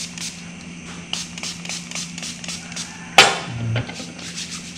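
Background music with a quick steady beat of light ticks. About three seconds in comes one sharp hiss from a pump spray bottle spraying alcohol onto a palm to sanitise the hands.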